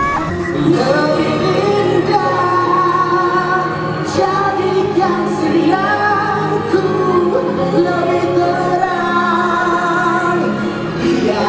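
Music: a song with a woman singing long held notes over a steady accompaniment.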